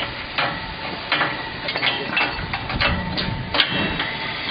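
Hand tools knocking and clanking on the steel mould and frame of a concrete block machine during a mould change: about eight sharp metal knocks at irregular intervals, the loudest about three and a half seconds in.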